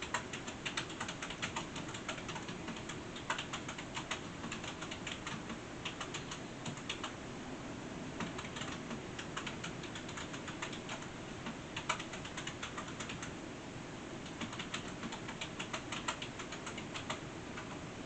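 Runs of quick, light, irregular clicks, several a second, broken by short pauses, over a steady low hiss.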